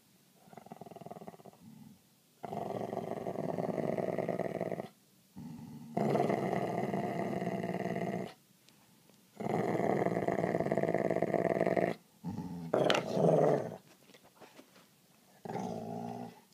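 Dog growling over a chew toy in a tug-of-war: three long, low growls of two to three seconds each with short pauses between, then a sharper outburst with a quick rising cry and a last short growl near the end.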